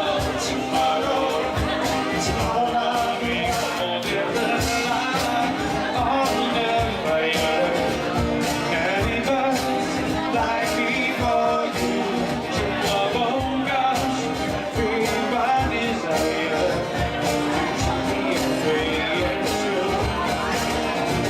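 Band music: a rock-and-roll-style song with a steady drum beat and sustained instruments.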